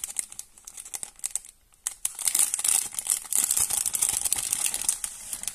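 Clear plastic stamp sheets crinkling and crackling as they are handled and flexed, with a brief lull a little after a second in.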